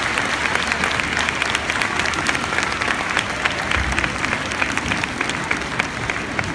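An arena audience applauding steadily after a figure skating free skate, with individual hand claps close by standing out sharply above the general applause.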